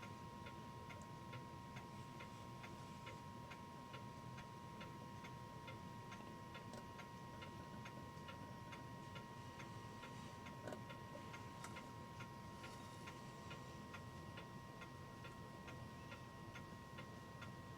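Mechanical clock ticking steadily and faintly, with even, regular ticks over a faint steady whine.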